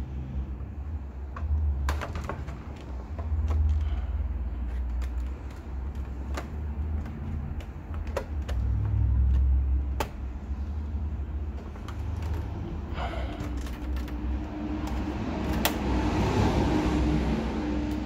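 Plastic rear cover and retaining clips of an HP Pavilion 23 all-in-one computer clicking, knocking and creaking as they are pried apart by hand and with a pry tool, over a low rumble of handling. A rougher scraping comes in near the end as the tool works along the seam.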